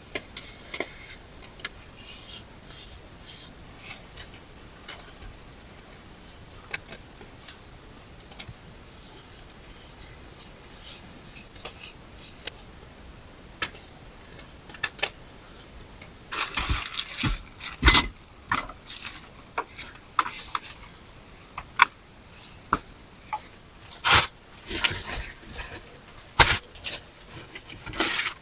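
Scattered clicks, scrapes and knocks of objects being handled, growing busier and louder in two stretches in the second half.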